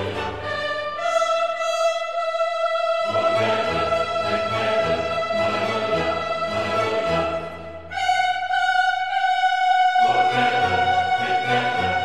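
Slow classical background music with long held high notes. A low accompaniment comes in about three seconds in, and after a brief break near two thirds of the way through a new, higher note is held.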